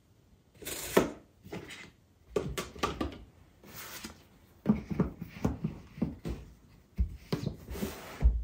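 Irregular knocks, taps and brief swishes of household objects being handled, the loudest knock about a second in and another cluster near the end.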